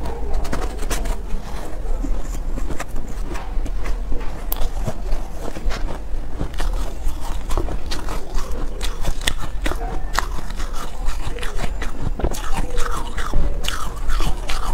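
Soft, crumbly cotton ice being bitten and chewed close to the microphone: irregular soft crunches, mixed with a metal spoon scraping and scooping through the ice in a plastic tub.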